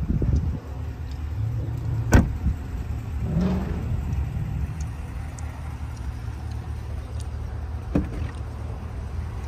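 A car door shutting with a single solid thump about two seconds in, over a steady low rumble, with a fainter knock near the end.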